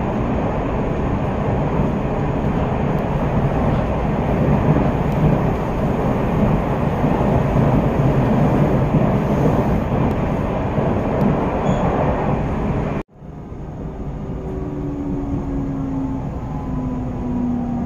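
JR Central 373 series electric train heard from inside the carriage, running at speed with a steady rumble of wheels on rail. About 13 seconds in the sound cuts abruptly and comes back quieter. From there the traction motors whine in falling pitch as the train brakes into a station.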